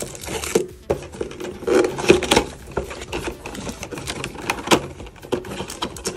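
Small cardboard retail box being opened by hand: flaps pulled open, with a peeled-off plastic seal rustling. Irregular taps, scrapes and crinkles, a few sharper knocks among them.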